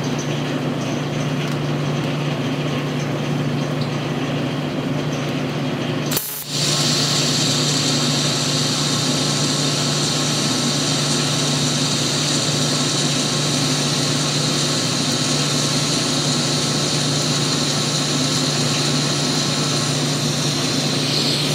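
TIG welding arc struck on a flat metal plate about six seconds in, then held as a steady, high-pitched hissing buzz. A steady low hum runs underneath throughout.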